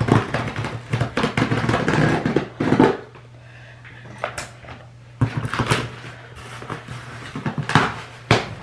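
A large cardboard shipping box being opened and handled: cardboard scraping, rustling and knocking in two busy spells, with a quieter gap in the middle.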